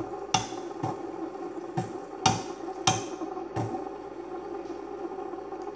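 Music playing in the room, with a beat of sharp knocks about twice a second over a steady sustained tone.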